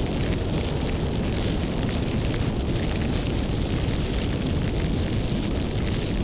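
Fire burning with a steady low rumble and many small crackles throughout.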